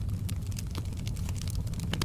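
Wood fire crackling in a fireplace: irregular sharp pops and snaps over a steady low rumble, with a louder pop near the end.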